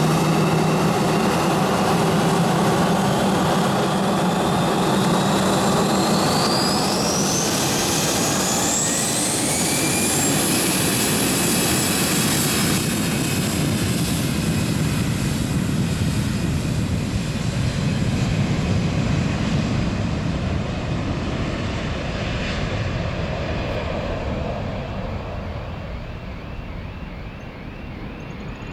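Airbus A319 jet engines spooling up to takeoff thrust, with a whine rising steadily in pitch over the first ten seconds above a loud roar. The airliner then accelerates away down the runway on its takeoff roll, and the roar fades over the last few seconds.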